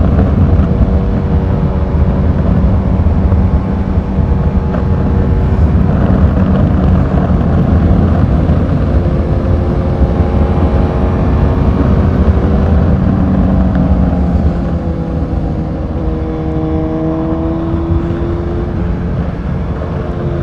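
Motorcycle engine running while riding, its pitch rising and falling with the throttle and easing off a little in the second half, under heavy wind rush on the microphone.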